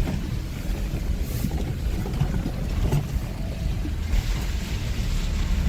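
Moving car heard from inside on a rough road: a steady low rumble of engine and tyres with wind noise and a few faint knocks. The hiss grows louder about four seconds in.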